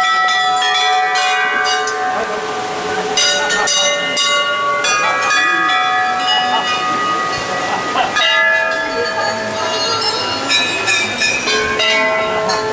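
Many temple bells rung over and over, strikes coming every second or so and their ringing tones at many different pitches overlapping into a continuous jangle.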